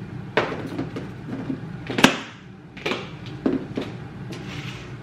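Kitchen clatter: a handful of knocks and clunks of items being set down and put away, the sharpest about two seconds in, over a steady low hum.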